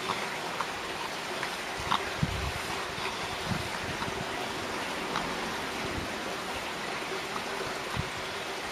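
Steady even rushing background noise with a few faint ticks scattered through it; no cat call stands out.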